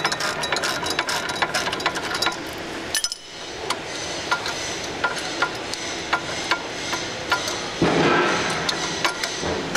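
Socket ratchet wrench clicking as it backs a bolt out of a steel hitch frame, fast clicks at first, then slower scattered metal clicks and clinks. Near the end comes a louder rough scraping stretch of metal.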